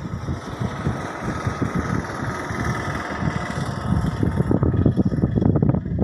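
Wind buffeting a phone microphone outdoors: an uneven, gusty rumble.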